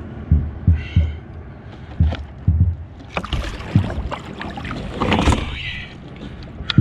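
Water splashing and streaming off a large black drum as it is hauled out of the water onto a kayak, loudest about three to five and a half seconds in, among a series of short low thumps.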